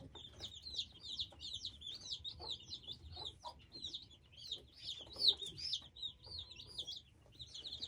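A brood of young chicks peeping continuously, many short high-pitched chirps overlapping one another.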